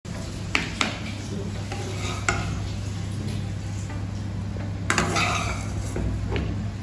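Metal spatula scraping and clinking in a wok and against a plate as small fried chicken pieces are served onto rice, with several sharp clinks over a steady low hum.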